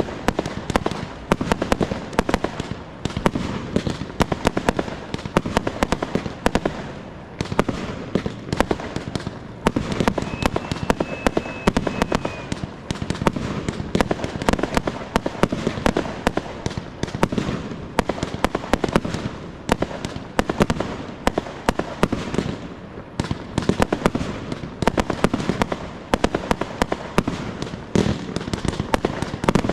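Fireworks display heard from close to the firing zone: a continuous barrage of launches and bursting shells, sharp bangs and cracks several a second. A brief high whistle rises over the barrage about ten seconds in.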